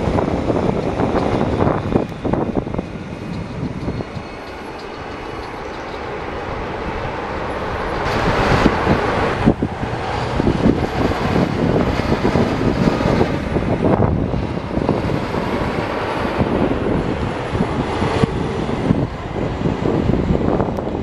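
Heavy trucks and cars passing on a road: diesel dump trucks' engines and tyre noise, fading down and swelling again as the next vehicles go by, loudest in the second half.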